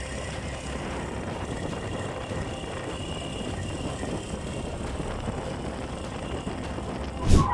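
Steady vehicle noise, with one sudden loud thump near the end.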